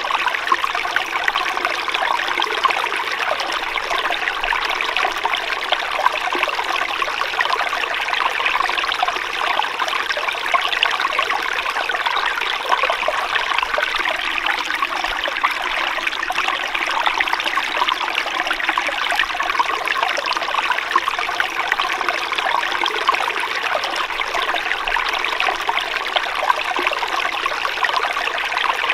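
Water flowing steadily in a small stream, a continuous trickling and babbling with no change in strength.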